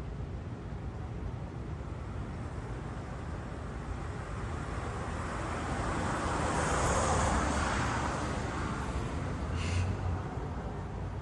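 Road traffic noise: a vehicle passing, swelling to its loudest about seven seconds in and fading, with a brief high sound about ten seconds in.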